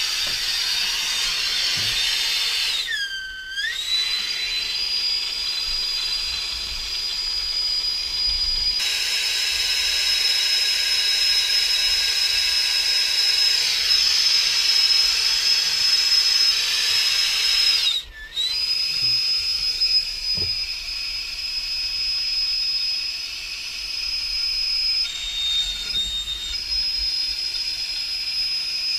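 Handheld gas plumbing torch burning, a steady hiss with a high whistle in it, as it heats copper pipe joints for soldering. The flame's sound wavers about three seconds in and drops out for a moment around eighteen seconds.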